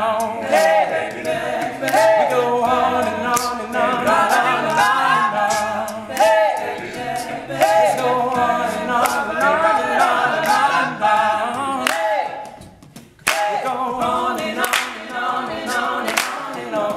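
All-male a cappella group singing in close harmony over a steady percussive beat. About three-quarters of the way through the sound breaks off briefly, then the voices come back in, and hands start clapping along near the end.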